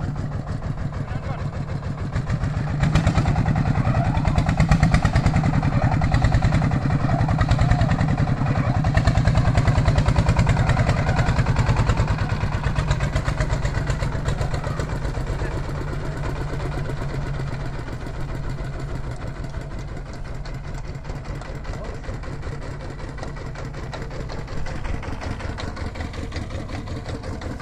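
A rice threshing machine runs under load: its engine chugs with rapid, even firing pulses while the drum threshes rice stalks as they are fed in. It is louder through the first half, then settles a little quieter.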